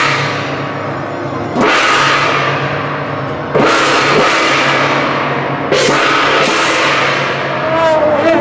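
Procession gong and cymbals crashing about every two seconds, each stroke ringing out and fading, over a low steady drone. A higher held tone swells in near the end.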